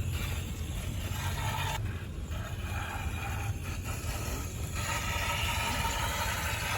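1/6-scale RC crawler's electric motor and drivetrain running as the truck works over rock, with tyres scraping on stone and a steady low rumble underneath. The sound changes character abruptly about two seconds in and again about five seconds in.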